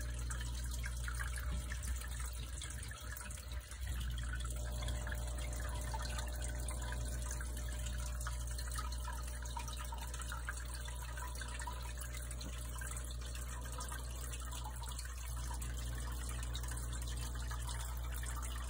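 Aquarium water trickling and dripping steadily over a low, steady hum, the sound of the tank's filtration running.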